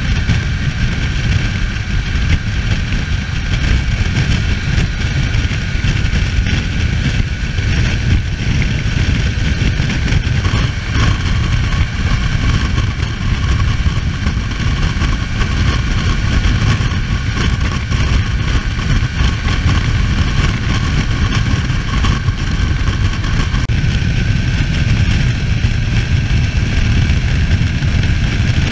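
A BMW F800 GS parallel-twin motorcycle riding at cruising speed, heard from a camera mounted on the bike: a steady engine drone over a heavy low rumble of wind on the microphone. The engine note changes about ten seconds in and again near twenty-four seconds.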